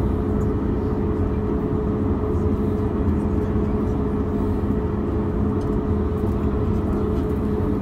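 The Boeing 737 MAX 8's CFM LEAP-1B turbofan engines running, heard inside the cabin. It is a steady drone: a low rumble with two held humming tones, unchanging as the airliner rolls along the runway.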